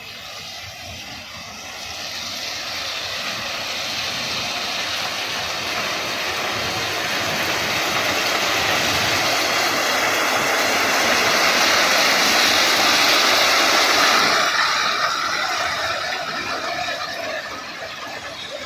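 Crushed-stone ballast pouring from the bottom discharge chutes of BOBYN hopper wagons onto the track as the train rolls slowly past, a continuous rushing rattle. It swells to its loudest about two-thirds of the way through as a discharging wagon passes close, then fades.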